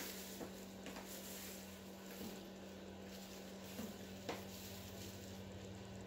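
Quiet room tone with a steady low hum, and a few light clicks and taps as a wet, paint-poured canvas on a wooden stretcher frame is handled and tilted. The loudest tap comes just past four seconds in.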